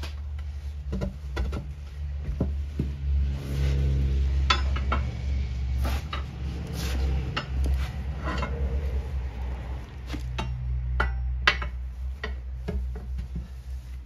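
Metal tire spoons and a screwdriver clinking, knocking and scraping against a steel wheel rim as a tire bead is pried over it, in irregular clanks over a steady low hum.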